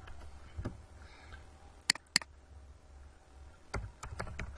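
Computer keyboard keystrokes: a few sharp, scattered taps, two close together about two seconds in and a quick cluster near the end, over a faint low hum.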